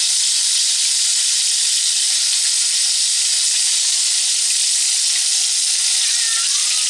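Floured chuck roast sizzling steadily in hot oil in a Dutch oven as it is seared brown on its edges, an even hiss with no breaks.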